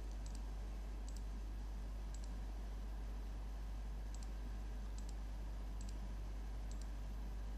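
Computer mouse button clicking about seven times, each click a faint double tick of press and release, over a steady low hum.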